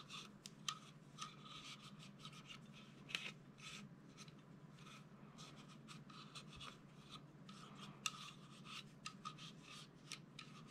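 Faint rubbing and scratching of an oiled cotton cleaning patch being worked by hand over a pistol's polymer frame, with a few soft taps along the way.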